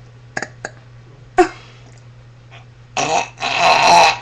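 A girl burping: a loud, rough burp lasting about a second near the end, after a few small clicks.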